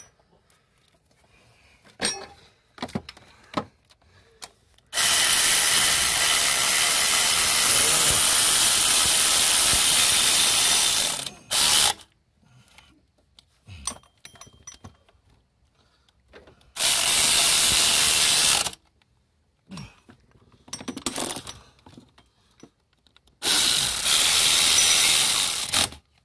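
Cordless 12-volt ratchet running, driving in the power steering pump's mounting bolts: three runs of about six, two and two and a half seconds, with short scattered clicks of tools between them.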